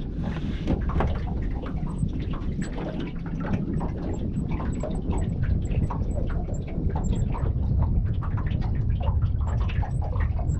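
Wind rumbling on the microphone, with water lapping and slapping against the aluminium hull of a small boat in many irregular taps and splashes.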